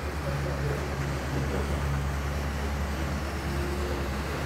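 Steady low engine hum, with a faint brief tone near the end.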